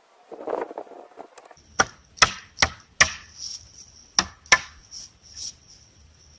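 A quick series of sharp wooden cracks and knocks, about six within three seconds, from working a freshly cut young poplar pole.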